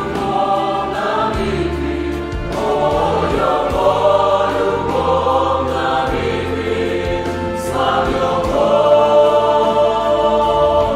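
Youth choir singing a hymn in sustained chords, the phrases changing every couple of seconds over a steady low bass.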